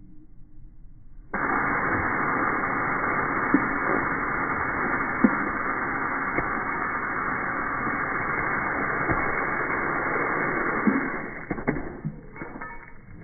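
Water jetting from a garden hose spray nozzle onto a dog: a steady rushing hiss that starts suddenly about a second in and fades out near the end, with a few short clicks through it.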